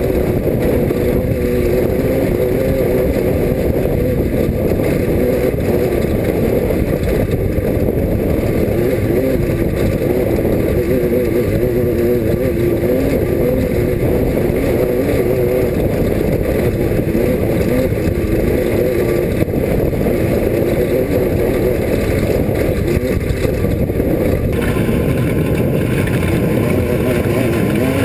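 Class 5 off-road race car engine running hard and steadily under load, its pitch wavering slightly up and down.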